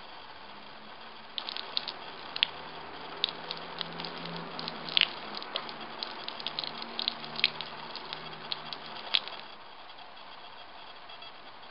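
Water flooding over a slate slab, splashing and pattering with many sharp irregular drips. It starts about a second and a half in and stops a couple of seconds before the end.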